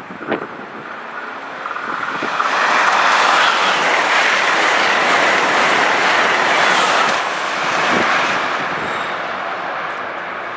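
A vehicle passing by: a rushing noise that swells from about two seconds in, holds for several seconds, then slowly fades.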